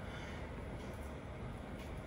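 Faint steady background hiss with no distinct event: room tone.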